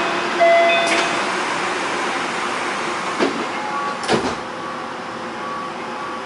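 Osaka Monorail 3000-series car doors closing at a station: short beeps of the door chime at the start, then the sliding doors shutting with two knocks about three and four seconds in, over a steady cabin hum.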